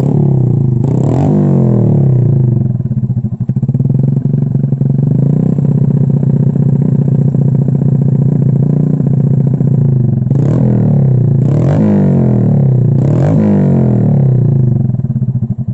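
Motorcycle engine idling through a JRM aftermarket slip-on exhaust, revved briefly four times: once about a second in and three more times near the end.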